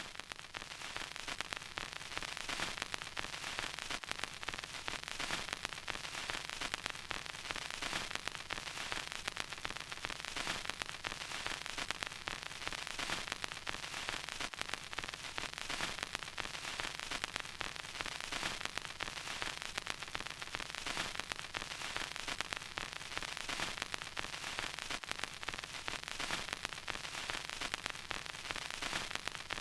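Vinyl record crackle: a steady hiss of surface noise thick with small, irregular pops and clicks from the stylus in the groove.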